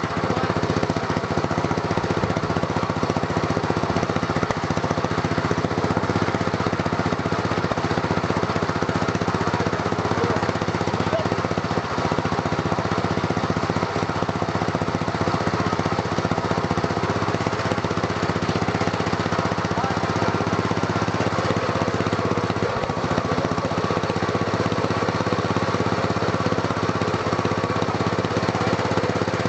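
Engine of a Craftsman racing lawn mower, modified with cam and exhaust work, running loud at a steady, unchanging speed.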